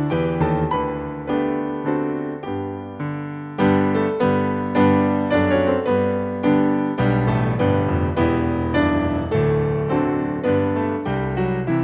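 Background piano music: a slow solo piece played as a steady stream of notes, each fading after it is struck.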